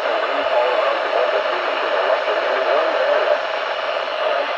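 Loud, steady static hiss from a radio receiver, with a faint voice buried under the noise.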